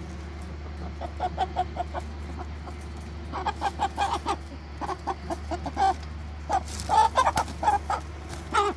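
White meat chickens clucking in a wire crate: a run of short clucks, sparse at first, then busier and louder through the second half.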